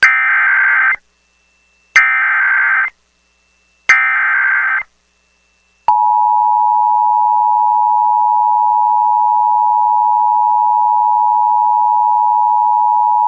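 Emergency Alert System header: three bursts of SAME digital data, a harsh warbling screech each about a second long and about two seconds apart. About six seconds in, the two-tone EAS attention signal starts and holds steady, announcing a weather warning.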